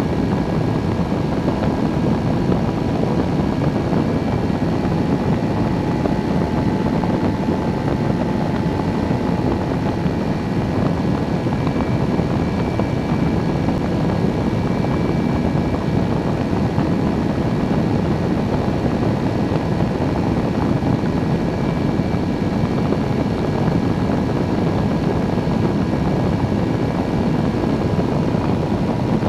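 Microlight trike's engine and pusher propeller running steadily in cruise, under a heavy rush of wind on the wing-mounted camera, with a few faint steady engine tones above the noise.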